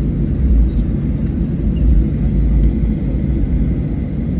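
Steady low rumble of a Boeing 737-800's CFM56-7B turbofan engines and airflow, heard from inside the passenger cabin.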